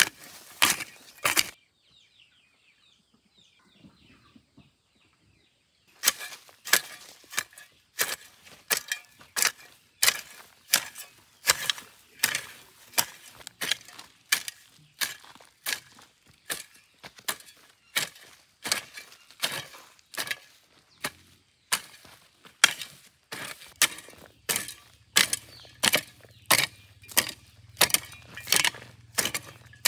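Rhythmic chopping, a blade striking about twice a second. The chopping stops for a few seconds near the start, when faint high chirps can be heard, then resumes steadily.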